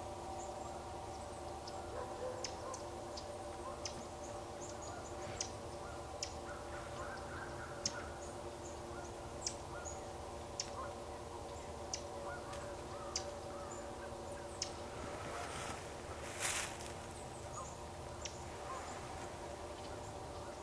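A distant flock of geese calling in a steady, overlapping chorus, with short high chirps scattered through and a brief rush of noise about 16 seconds in.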